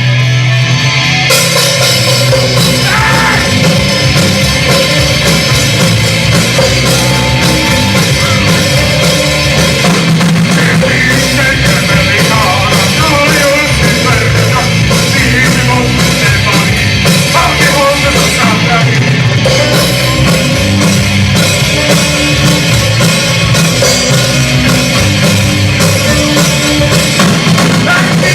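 A rock band playing loudly: electric guitar alone at first, then drums and the full band come in about a second in and play on steadily.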